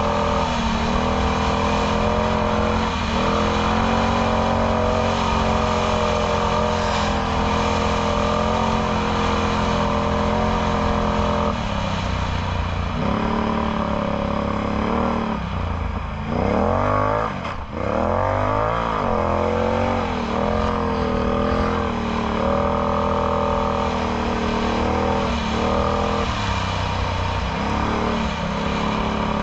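Can-Am Outlander X MR 850 ATV's V-twin engine through a Yoshimura slip-on exhaust, running at steady trail speed with brief lifts of the throttle. A little past halfway the revs drop sharply and then climb again.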